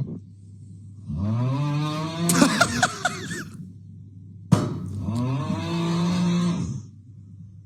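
A man's loud snoring from a played TikTok clip: two long snores, about a second and about four and a half seconds in, each rising in pitch.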